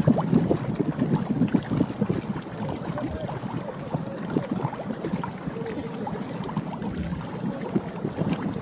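Gusty wind buffeting the microphone in an uneven, choppy rumble.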